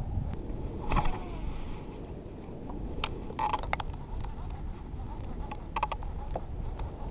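Light wind rumble and small waves lapping against a kayak's hull, with scattered sharp clicks and taps, the loudest about a second in and a quick cluster near six seconds.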